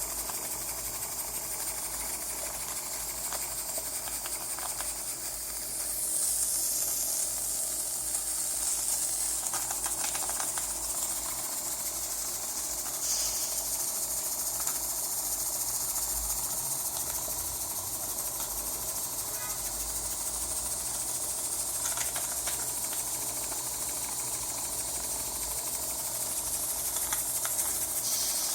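Steam hissing from a homemade cross-tube steam boiler under steam. A steady hiss swells louder about six seconds in, again around thirteen seconds and near the end, with a few faint ticks.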